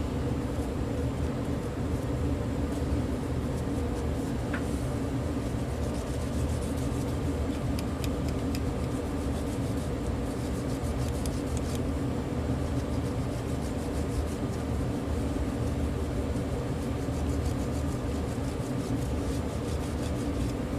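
Steady low mechanical hum of room background noise, with faint light clicks scattered through the middle.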